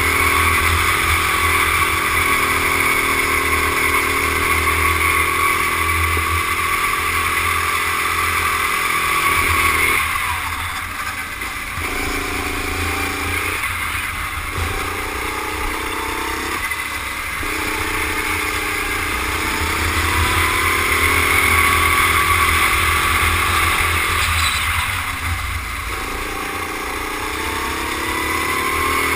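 Rental kart engine running hard down a straight, its note climbing steadily, with wind buffeting the helmet-mounted camera. About ten seconds in the throttle comes off and the engine drops back, picking up in short bursts through a run of corners, then climbs again on the next straight, with one more brief lift near the end.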